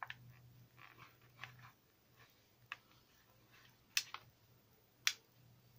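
Small plastic clicks and crackles from fingers handling a plastic blister pack of mini satin roses, with two sharper clicks about four and five seconds in. A faint steady low hum runs underneath.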